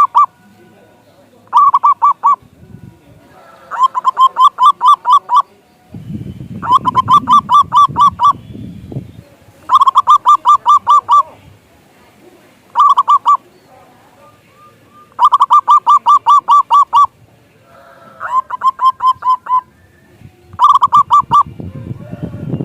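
Zebra dove (perkutut) singing: about eight loud phrases of fast, stuttering coo notes with short pauses between them. A low rumble sits under the song in the middle.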